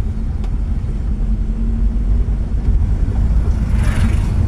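Car being driven, with a steady low rumble of engine and road noise and a brief higher-pitched noise near the end.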